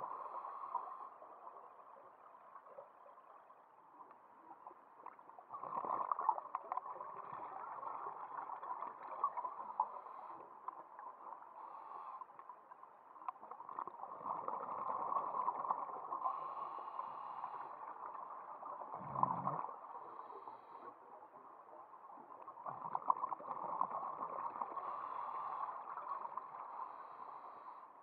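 Scuba diver's breathing heard underwater, with exhaled regulator bubbles gurgling in long swells about every eight or nine seconds and a quieter hiss between them. A short low thump comes about two-thirds of the way in.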